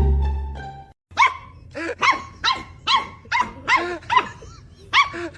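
A dog barking again and again in sharp, evenly spaced barks, about two a second. Before the barking starts, plucked string music plays for about a second and then cuts off.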